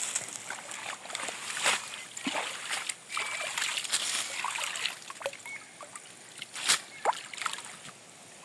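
Water sloshing and splashing, with a string of short separate splashes and drips, as someone moves about in lagoon water.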